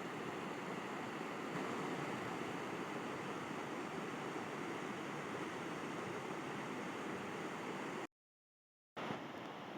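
River water rushing in a steady, even wash of noise. Near the end it cuts out to dead silence for about a second, then comes back.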